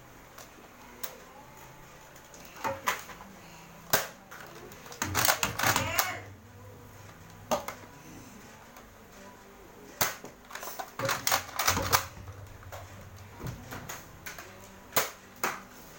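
Nerf toy blasters and their magazines making scattered sharp plastic clicks and knocks, some in quick clusters, as they are handled, primed and fired.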